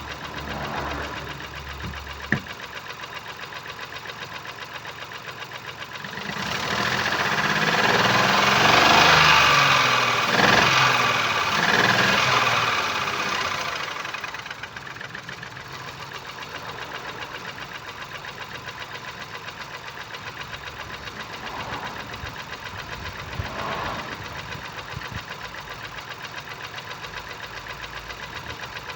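Ford Focus 1.0 EcoBoost three-cylinder petrol engine running with no compression in its first cylinder. It idles, is revved up for several seconds about six seconds in, and settles back to idle, with a sharp click about two seconds in.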